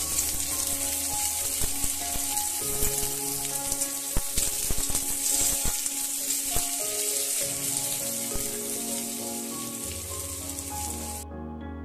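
Sliced onion and garlic sizzling in hot mustard oil in a metal kadai, stirred with a metal spatula that scrapes and clicks against the pan. Soft background music plays underneath, and the sizzle cuts off suddenly near the end.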